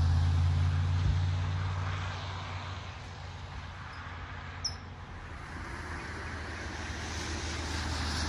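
A motor vehicle passing close by, its engine hum fading away over the first few seconds, then another vehicle approaching near the end, with faint road traffic in between.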